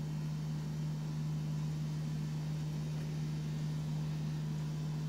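A steady low hum with a faint hiss behind it: room tone, with no distinct event.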